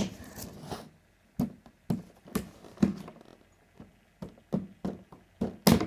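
A series of short knocks and taps from things being handled during an unboxing, about two a second, with a louder pair near the end.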